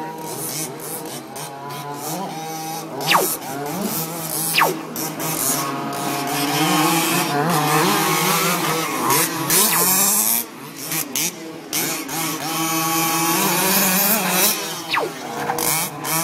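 Several gas-powered 1/5-scale Baja RC trucks' small two-stroke engines buzzing and revving together, their pitch rising and falling with the throttle, with a few quick falling whines.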